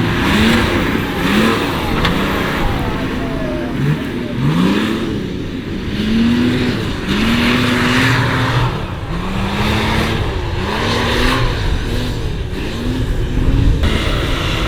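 Off-road 4x4's engine revving hard again and again, its pitch climbing and dropping about once a second, with surges of rushing noise on the revs.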